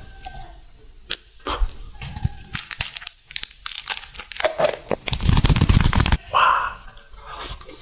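Close-miked crinkling and tearing of food packaging, with sharp crackles and clicks, and a dense crunching stretch of about a second a little over five seconds in.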